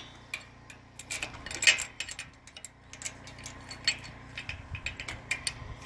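Irregular light metallic clicks and clinks as a steel angle bracket with a welded loop is handled and fitted against a galvanized steel post and base plate, the loudest clink about two seconds in.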